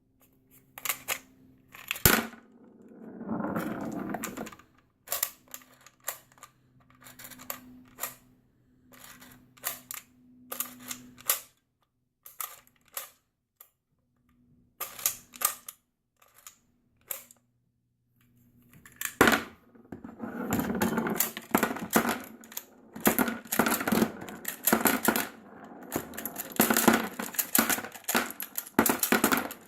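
Metal cartridges clicking and clinking as they are loaded into a magazine with a MagLula loader: scattered sharp clicks at first, then a long, quicker run of clicks and rattling in the second half.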